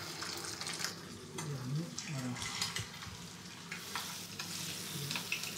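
Trout fillets frying in foaming butter in a stainless steel pan, a steady sizzle with a few light clicks and taps as the fillets are laid in.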